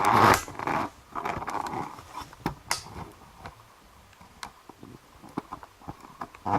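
Close handling noise as a camera is unscrewed from its mount: a burst of rustling and scraping at the start, then scattered small clicks and scrapes.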